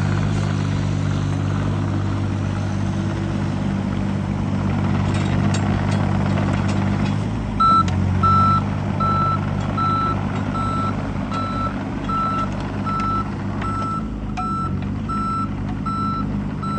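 2008 John Deere 17D mini excavator's diesel engine running steadily under load as the machine works on its tracks. About halfway through, its travel/backup alarm starts beeping, an even high beep about one and a half times a second.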